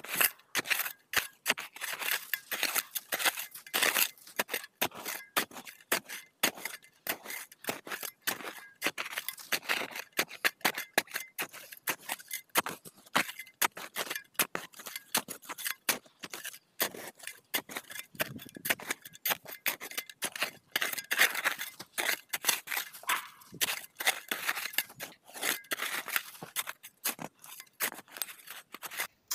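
Collapsible steel shovel digging into a snowbank: rapid, irregular scrapes and crunches of the blade cutting packed snow, with no break.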